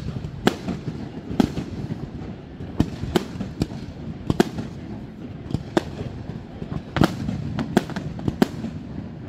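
Fireworks display: aerial shells bursting as about fifteen sharp bangs at irregular intervals, sometimes two or three close together, over a continuous low rumble.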